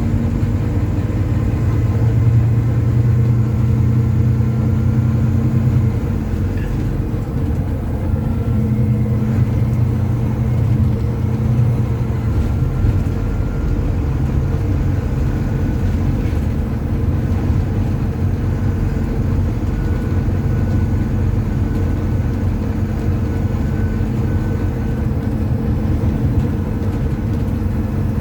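Volvo B9TL double-decker bus's six-cylinder diesel engine heard from inside the bus, pulling with a strong steady drone in two stretches over the first twelve seconds or so, then easing off to run more quietly.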